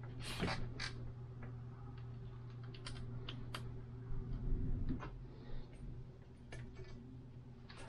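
Scattered light clicks and taps from hands working on a bicycle's handlebar, over a steady low hum.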